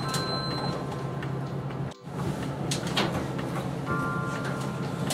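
Elevator car interior: a steady low hum, with a short electronic signal tone near the start and again near the end. The sound cuts out for an instant about two seconds in.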